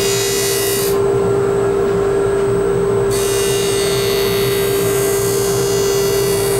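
Blademaster skate-sharpening machine running with a steady hum while a steel hockey skate blade is ground on its wheel, giving a grinding hiss. The hiss drops away from about a second in to about three seconds in, then returns.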